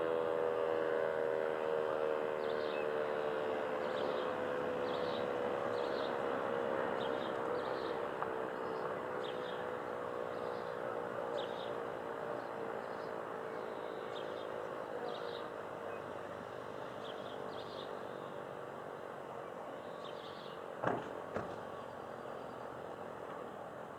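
DS977 electro-mechanical civil-defence siren winding down at the end of its test signal, its tone slowly falling in pitch and fading away. Short high chirps come about once a second, and two sharp knocks fall near the end.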